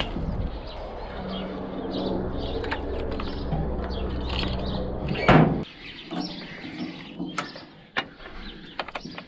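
UTB Universal 650 tractor's four-cylinder diesel engine idling steadily, then shut off about five seconds in with a brief loud shudder as it dies. Afterwards birds chirp and there are a few sharp clicks.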